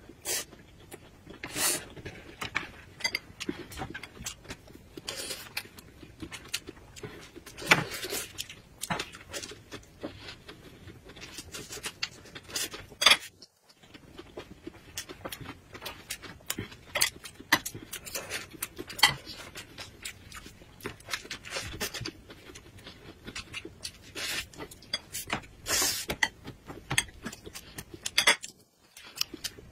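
Close-up eating sounds: chewing and lip-smacking, with many short sharp clicks and taps from chopsticks against plates and dishes as a thin pancake is filled and handled.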